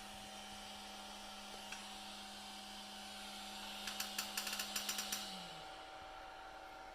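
3D printer humming faintly after finishing a print, with a quick run of clicks about four seconds in. Then its steady hum drops in pitch and stops, like a fan or motor winding down once the job is done.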